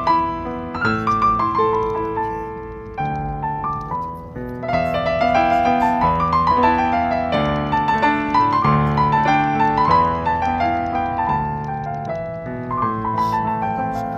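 Piano music: a melody of single notes over lower chords, played at an unhurried pace.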